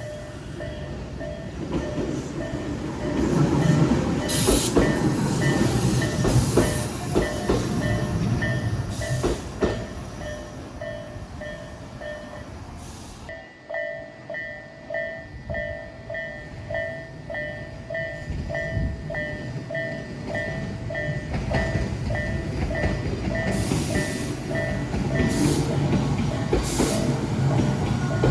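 Japanese level-crossing warning bell ringing its repeated 'kan-kan' strokes, about two a second, while a Tobu 8000-series electric train passes over the crossing, its wheels on the rails rumbling; the train noise swells twice, and the bell stops a few seconds before the end.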